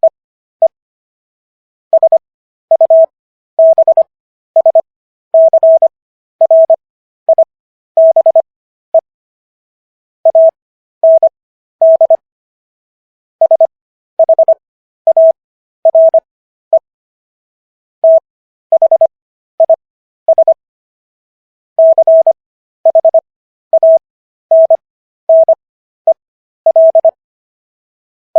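Morse code practice tone: one steady mid-pitched beep keyed on and off in short dots and dashes, characters sent at 25 wpm with Farnsworth spacing for 15 wpm overall, so the letters come fast with longer silences between them and between words.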